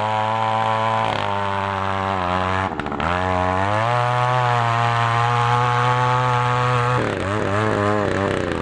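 Oshima 2PS earth auger's 54 cc two-stroke engine running at high speed as the bit bores into soil. The engine pitch dips briefly about three seconds in, climbs and holds higher, then drops and wavers near the end as the load on the bit changes.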